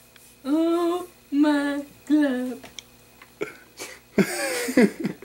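Golden retriever vocalizing while lying on its back: three drawn-out moaning 'woo' sounds in quick succession, then a longer wavering one about four seconds in.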